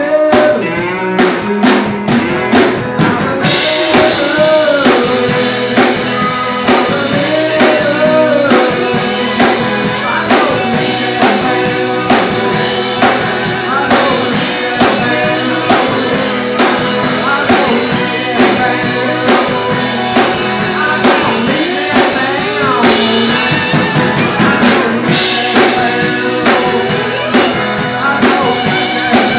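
Live rock band playing together: strummed acoustic guitar, electric guitar and a drum kit, with a man singing at times.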